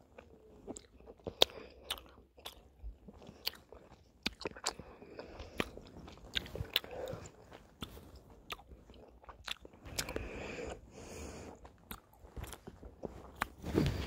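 A person chewing a piece of Centre Shock sour chewing gum close to the microphone: wet, irregular chewing with sharp clicks and crunches, the loudest about a second and a half in.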